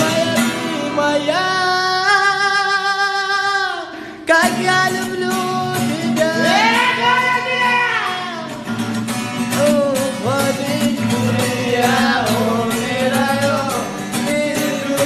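A song: a voice singing a melody with held, wavering notes over a strummed guitar accompaniment with a steady beat.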